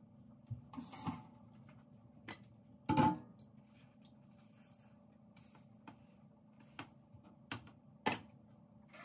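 Cookware clatter: a spatula tapping and scraping in a nonstick frying pan and the pan and its glass lid being handled. There are scattered light clicks, a loud clank with a short ring about three seconds in, and another sharp knock near the end, over a faint steady hum.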